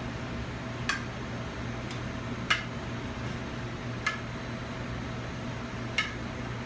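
Metal tongs clink four times, roughly every one and a half to two seconds, against a sauté pan and plate as cooked shrimp are lifted out and set down. A steady machine hum runs underneath.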